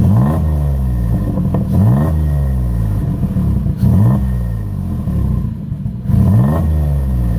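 Turbocharged Nissan 350Z's 3.5-litre V6 engine revved in four quick blips about two seconds apart, each sweeping up and falling back to idle. The car runs with an exhaust leak that the owners say still needs fixing.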